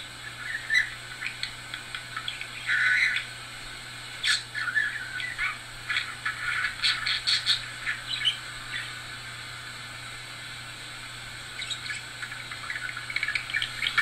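Budgerigar chattering in quick chirps and squawks, with a longer call about three seconds in. It goes quiet for a couple of seconds past the middle, then picks up again near the end.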